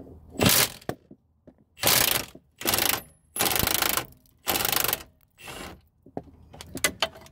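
Milwaukee cordless impact wrench hammering in about six short bursts, each about half a second long, as it breaks loose and spins out a rusted 18 mm subframe bolt.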